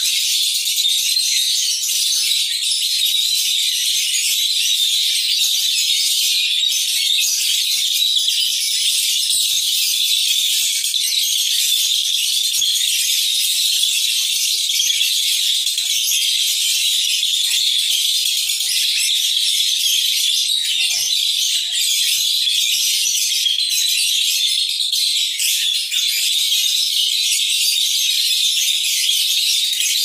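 Lovebird ngekek: a long, unbroken, high-pitched chattering trill, kept up at a steady level with only very short breaks.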